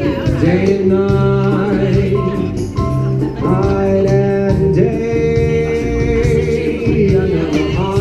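Live band music: a man singing a smooth, held melody over guitar and a steady beat, heard through the PA.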